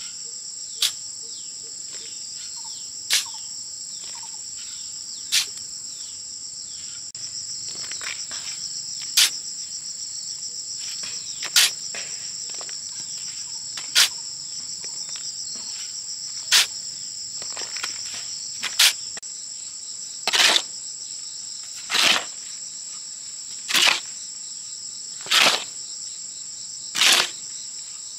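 Steady high-pitched insect chorus with sharp knocks at an even pace, about one every two seconds, coming a little quicker and heavier in the last third.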